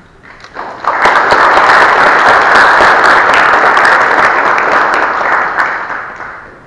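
Audience applauding: a crowd's clapping swells up about a second in, holds steady, and dies away near the end.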